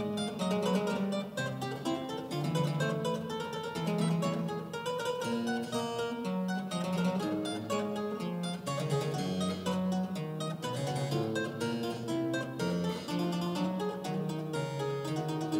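Solo harpsichord playing a lively run of many short plucked notes in quick succession.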